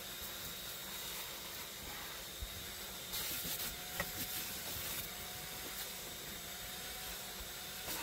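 Vacuum cleaner running, its hose hissing steadily as it sucks dirt from under the dashboard, with a brief louder rush a little after three seconds and a click about four seconds in.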